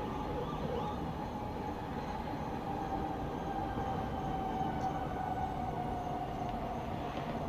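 Distant town noise at night: a steady low rumble with a drawn-out tone above it that slowly drops in pitch over the second half.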